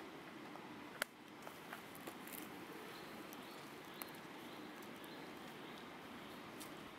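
A young long-tailed macaque handling a dry twig: one sharp crack about a second in, then a few soft ticks, over a faint steady outdoor hiss.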